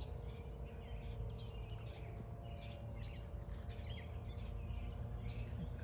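Small birds chirping and calling over and over, over a steady low rumble.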